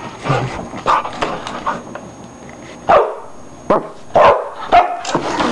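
A hyper dog barking in play, four sharp barks in quick succession in the second half, with scuffling noise before them.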